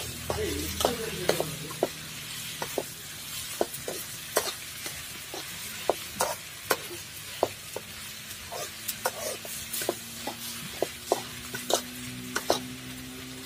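Chicken frying and sizzling in a large metal pot over a wood fire. A metal ladle stirs it, clinking and scraping against the pot about once or twice a second.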